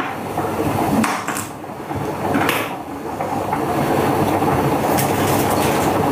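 A kitchen knife chopping broccoli on a wooden chopping board, giving a few sharp knocks, over a steady low rumbling noise.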